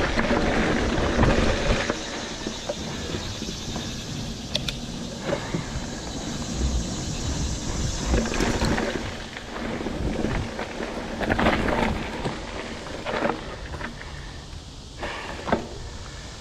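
Mountain bike riding down a dirt trail: tyres rolling over dirt and rock, with the bike rattling and knocking over bumps and wind rumbling on the bike-mounted camera's microphone.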